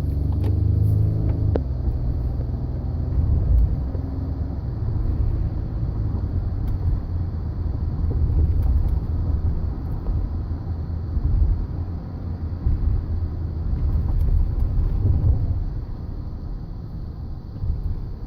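Ford F-150 pickup truck on the move: a steady low rumble, with a few faint clicks in the first two seconds.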